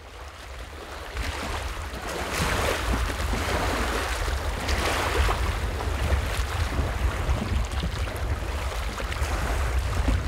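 Gusty wind buffeting the microphone with a steady low rumble, over small river waves lapping at the bank; the noise swells and eases every few seconds and fades in over the first couple of seconds.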